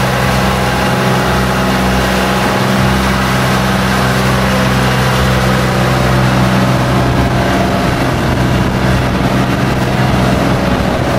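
A boat's engine running at a steady pitch, a constant loud drone with a rushing noise over it.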